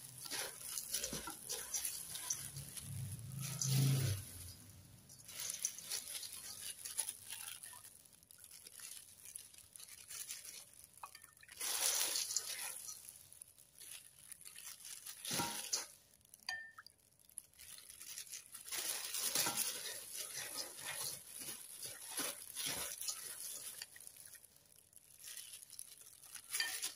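Gloved hands tossing and rubbing flattened green rice flakes (cốm dẹp) in a stainless steel bowl, a dry rustling scrape in uneven bursts as coconut water is mixed in to soften them. A single sharp knock about halfway through.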